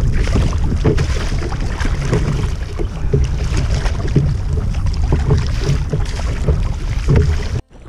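Kayak paddle strokes at sea: the blade splashing and dipping into choppy water at a regular pace, over heavy wind buffeting the microphone. The sound cuts off suddenly near the end.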